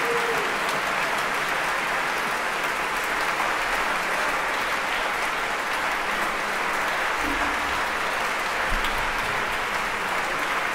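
Concert-hall audience applauding steadily after an orchestral performance.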